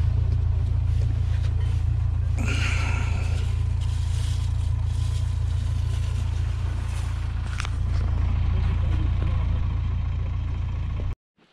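A tractor's engine idling with a steady low hum. A brief high squeak comes about two and a half seconds in and a sharp click near eight seconds, and the hum cuts off suddenly near the end.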